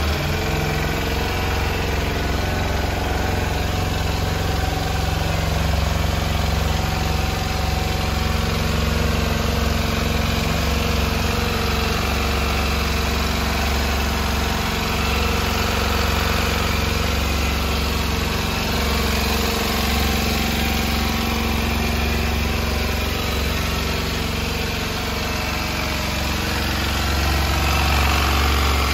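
Kawasaki Ninja 125's single-cylinder four-stroke engine idling steadily, just after being started.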